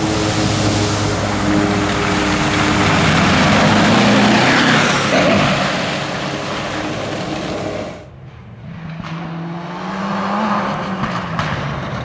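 Rally cars on loose gravel at full throttle. A car runs hard through a water crossing with a loud rush of spray and flung gravel. About eight seconds in, the sound drops abruptly to a quieter, more distant turbocharged four-cylinder Mitsubishi Lancer Evolution, its engine note rising and falling as it approaches over gravel.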